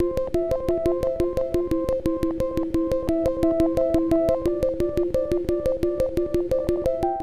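Looping electronic synthesizer jingle: a short figure of repeated notes, alternating between a higher and a lower pitch, over a fast steady click beat.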